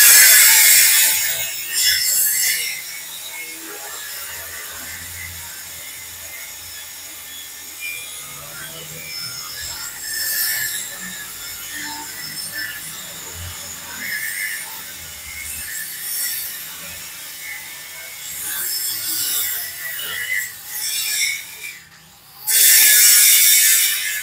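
Metalworking noise: irregular scraping and rasping of metal against metal, with two loud, hissing bursts, one at the very start and one near the end.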